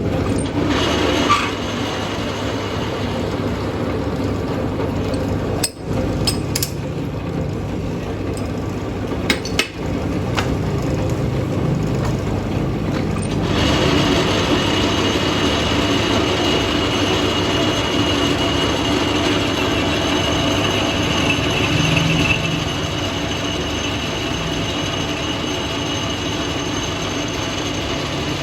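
Lathe running with a steady mechanical hum from its motor and gears, a few sharp clicks and knocks around six and nine seconds in. About halfway through a thin high whine joins and the noise grows a little louder.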